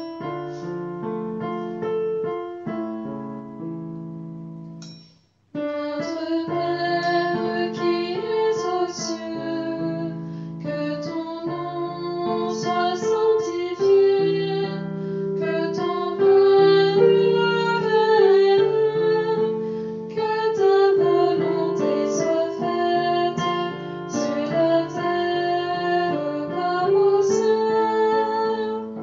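Piano music of held chords under a melody line, breaking off briefly about five seconds in and fading near the end.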